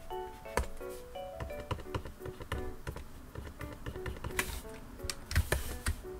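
Soft background music with short melodic notes, over frequent small clicks and taps of a plastic stylus on a Gaomon PD1560 pen display's screen, with two louder scratchy strokes near the end.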